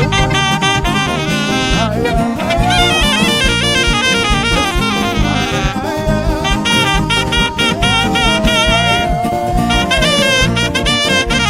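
Instrumental band music with a saxophone playing a sliding lead melody over a steady beat.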